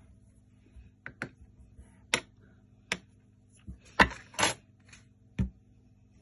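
About seven sharp taps and knocks, irregularly spaced and loudest about four seconds in, as a small block is handled and moved on a wooden tabletop.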